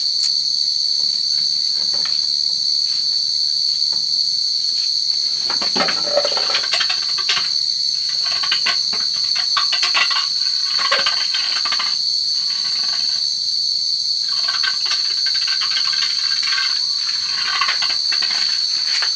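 A steady, high-pitched insect chorus shrilling without a break. Scattered clicks and knocks come and go through the middle.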